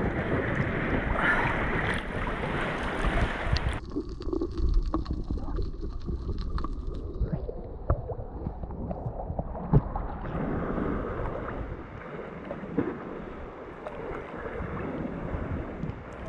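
Sea water sloshing and splashing against a camera held at the surface by a swimmer, with wind on the microphone. About four seconds in the sound turns abruptly muffled, its high end gone, and brightens again partway about ten seconds in; a short sharp sound stands out just before that.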